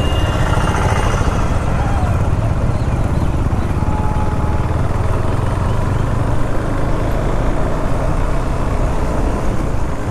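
KTM 390 Duke's single-cylinder engine running steadily while riding in traffic, under constant road and wind noise.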